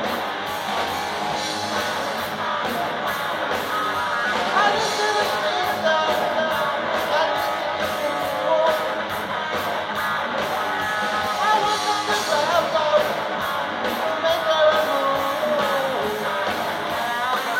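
Rock music with guitar and a steady beat, with what may be a singing voice.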